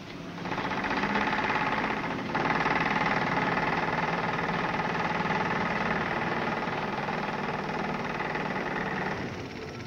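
Machinery running steadily with an engine-like drone. It starts about half a second in, dips briefly around two seconds, and fades out about nine seconds in.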